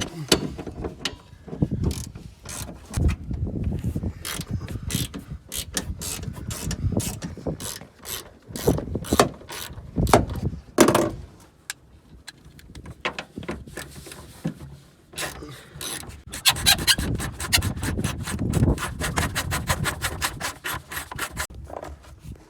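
Hand socket ratchet clicking as 13 mm seat-mounting bolts are loosened and backed out, with scattered knocks, and a fast run of ratchet clicks a few seconds before the end.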